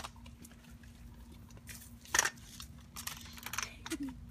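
Irregular scuffs and clicks of footsteps on a concrete sidewalk, with the loudest scuff about two seconds in and a quick run of them a second later.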